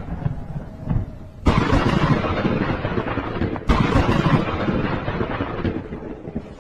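Thunder: two loud, sudden claps about a second and a half and three and a half seconds in, each trailing off in a long rumble.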